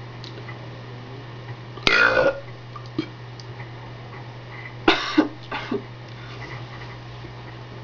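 A woman burping on purpose: one long, pitched burp about two seconds in, then a quick run of three or four short burps around five seconds in.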